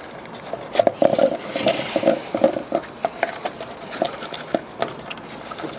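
Plastic 2-liter bottle squeaking and clicking as a firecracker is pushed down through a hole drilled in its bottom, with short repeated squeaks and a few sharp clicks.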